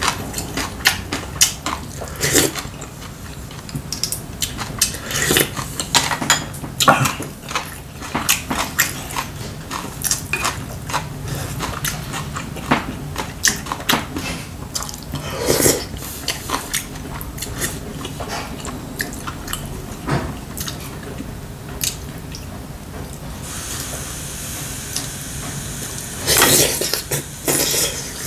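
Close-up eating sounds: a man chewing cutlassfish stew, with frequent light clicks of chopsticks and a spoon against bowls and the clay pot, and a few louder, longer noisy mouthfuls.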